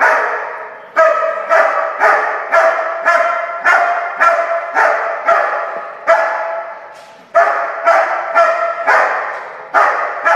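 German Shepherd barking steadily at a motionless decoy in a bark-and-hold protection exercise, about two barks a second, echoing off the building's metal walls. There is a short break early on and a pause of about a second around six seconds in.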